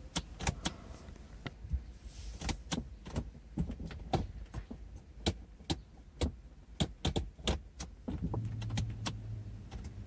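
Automatic gear selector lever of an Audi C5 A6 being moved back and forth through its gate positions, giving a run of sharp clicks, about two a second. A low steady hum comes in about eight seconds in.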